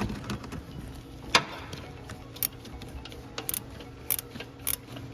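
Scattered sharp metallic clicks and taps of hand tools working on the engine while a new alternator is bolted in, the loudest about a second and a half in, over a faint low hum.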